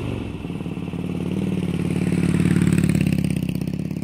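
Motorcycle engine running at a steady pitch, growing louder through the middle and easing off near the end.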